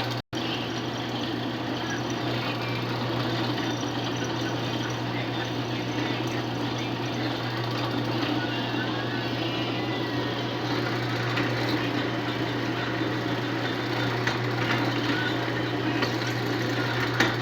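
An electric power tool's motor running steadily, with a constant low hum under a dense whirring noise, cut off for an instant just after the start.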